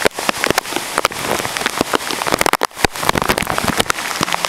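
Heavy rain pouring down in a tropical storm's outer rain band, a dense steady wash with many sharp drop hits close to the microphone. It briefly eases about two and a half seconds in.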